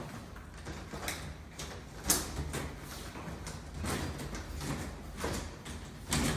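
Cabinet panels knocking and scraping as the bottom panel is set into the cabinet: a series of separate knocks, the loudest about two seconds in.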